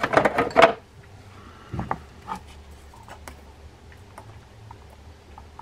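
A man's voice briefly at the start, then faint, scattered small clicks and ticks of a tool working a tiny E-clip loose on the axle shaft of a Penn Formula 15LD lever-drag fishing reel's side plate.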